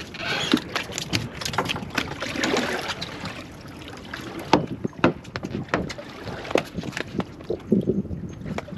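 Handling noises on a small fishing boat: a run of sharp clicks and knocks from the fishing trace, landed fish and fittings being handled, over a rustling hiss that is strongest in the first few seconds.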